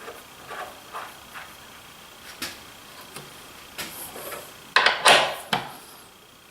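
Handling of wooden box parts and tools at the bench: a string of light knocks and clicks, then a short, louder burst of scraping and rubbing about five seconds in.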